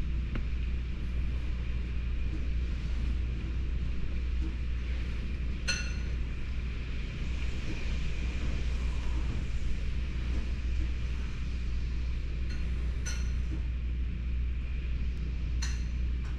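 Hurricane wind and heavy rain heard from indoors through a window: a steady deep rumble under a constant hiss. A few short clinks ring out about six seconds in and twice near the end.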